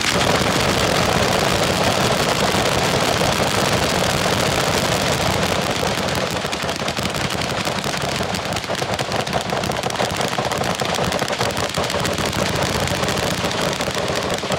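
A long firing line of dozens of guns shooting at once, machine guns among them: the overlapping shots merge into one unbroken rattle of gunfire with no gap.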